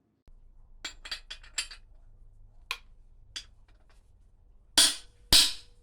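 Light metallic clicks and clinks of tools and transmission parts being handled, then, near the end, loud sharp strikes evenly spaced about two a second, each with a short ringing tail.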